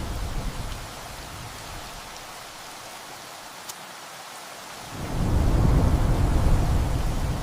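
Steady heavy rain with thunder: a deep rumble dies away in the first second, then a new roll of thunder starts suddenly about five seconds in and rumbles on.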